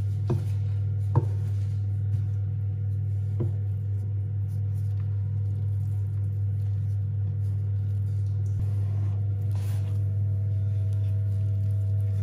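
Utensil stirring a stiff, sticky scone dough in a glass mixing bowl, knocking against the glass in three sharp clicks during the first few seconds. A steady low hum runs underneath throughout.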